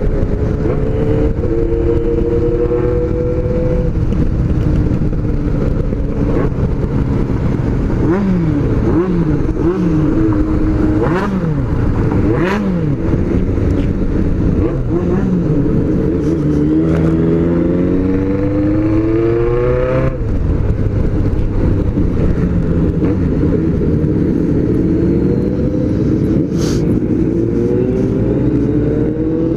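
Honda CBX750F inline-four motorcycle engine running under way, its pitch climbing and dropping as the throttle is worked through the gears: a run of quick rev rises and falls about a third of the way in, then several long climbs each ending in a drop at the shift. A sharp click near the end.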